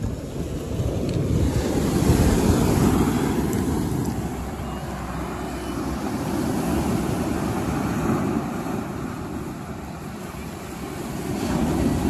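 Big Lake Superior waves surging on a cobble beach: a steady surf rush that swells loudest a couple of seconds in, eases off, and builds again near the end, with wind buffeting the microphone.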